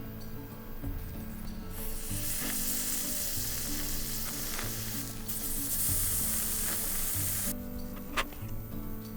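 Food sizzling on a hot grill. The sizzle starts about two seconds in and cuts off abruptly about two seconds before the end, with a few light clicks and a sharp click near the end, over background music.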